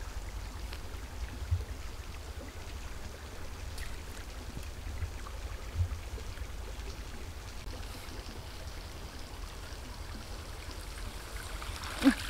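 Faint water trickling and splashing as a square lift net on crossed bamboo poles is worked in a pond, over a steady low rumble. A short, louder splash comes near the end as the net is hauled out of the water.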